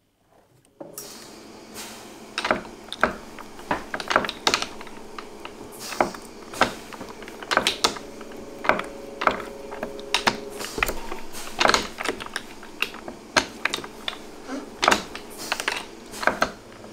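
Hand-cranked jeweller's rolling mill with grooved steel rollers working a gold wire: irregular sharp metallic clicks and knocks, one to three a second, over a steady low hum. The sound starts about a second in.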